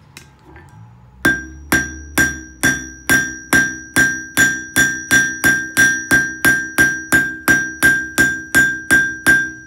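Hammer blows on a hot copper-and-nickel mokume gane billet on a steel anvil, flattening the drilled billet, beginning about a second in and going at two to three strikes a second, getting slightly faster. Each blow leaves the anvil ringing with a clear steady tone.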